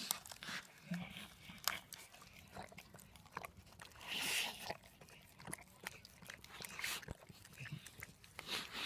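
Bull terrier eating wet minced meat from a stainless steel bowl: irregular chewing and lip-smacking with short clicks, and a longer slurp about four seconds in.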